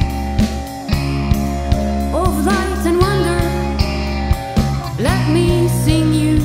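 Alternative rock song: a band playing over a steady drum beat and bass, with notes that slide upward twice.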